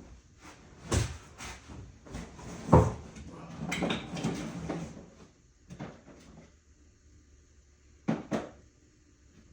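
Tools being handled during spark-plug work: a few sharp knocks and clatters, with rummaging about halfway through and two quick knocks near the end.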